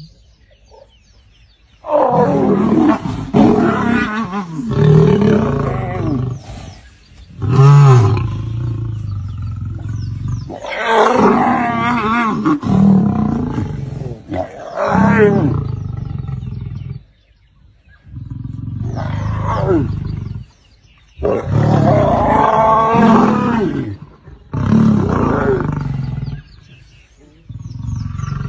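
Lions growling and snarling in repeated loud bouts, with short pauses between them.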